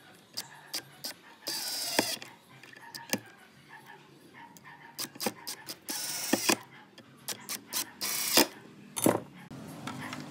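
Cordless drill driving small screws into a metal butt hinge on a wooden board, its motor whirring in three short runs, each under a second, with clicks and taps between.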